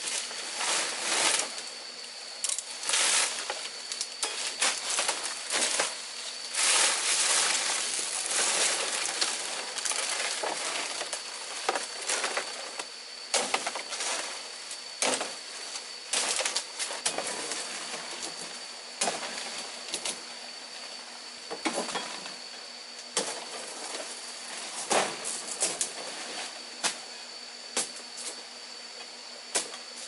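Dry and green fan-palm fronds rustling and crackling in irregular bursts as they are pulled and handled, with several sharp cracks scattered through. A steady high tone runs underneath.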